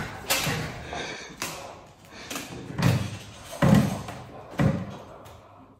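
About six heavy thumps and knocks against a wooden table, roughly a second apart, each with a short ringing tail.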